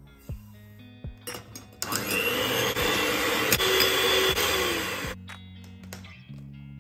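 Electric hand mixer whisking eggs and sugar in a glass bowl. It starts about two seconds in, runs loudly for about three seconds, then cuts off.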